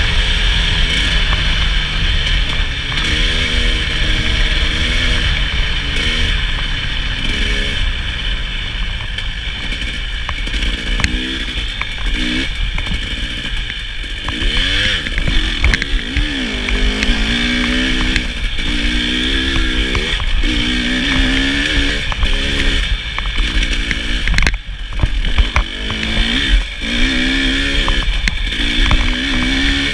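KTM 300 XC-W's two-stroke single-cylinder engine being ridden hard off-road, its revs rising and falling over and over through throttle changes and shifts, over a constant rush of noise. The engine note drops away briefly about 24 seconds in.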